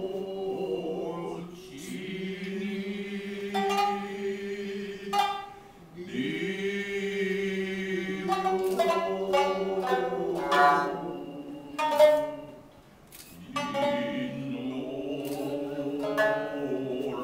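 Utazawa song: singers holding long, slowly bending notes, accompanied by shamisen plucked sparsely, each pluck sharp and ringing. The voices pause briefly about six seconds in and again near thirteen seconds, with the shamisen carrying on.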